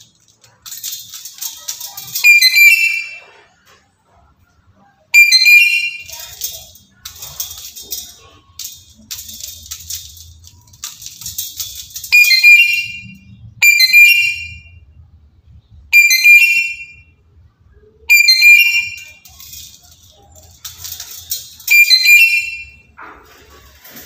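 Black-capped lory giving a series of loud, shrill squawking calls, about eight in all, each under a second, with pauses of one to three seconds between them. A rushing noise comes in during the last second.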